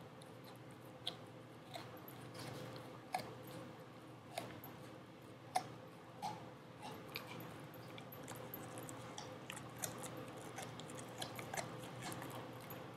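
A dog chewing a rawhide strip: irregular crunching clicks as it gnaws, the sharpest about halfway through.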